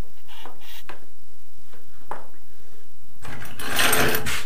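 A white plastic water-pipe assembly handled on a wooden board: a few light knocks, then about a second of scraping near the end as it is moved across the board.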